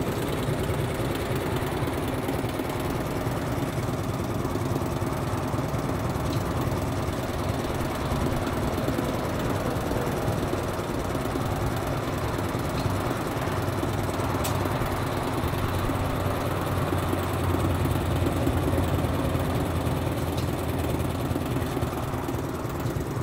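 A nearby engine running steadily at idle: a low, even hum. There is one faint click about two-thirds of the way through.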